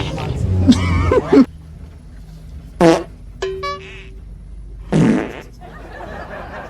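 Fart sounds: a long, low, sputtering fart in the first second and a half, then short bursts about three and five seconds in. A brief musical jingle plays between them.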